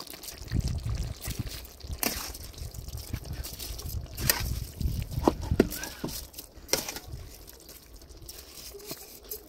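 Broth simmering in a plov kazan with a wet dribbling and bubbling sound as rice is spread over it, with several sharp clicks and scrapes of a metal skimmer against the pot.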